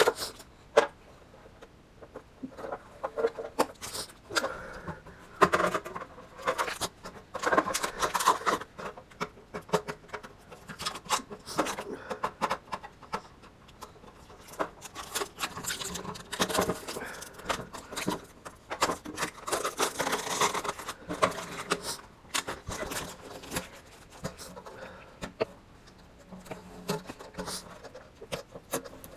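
Protective blue vinyl film being peeled off aluminium sheet-metal parts, crackling and crinkling in irregular bursts, with the aluminium pieces being handled.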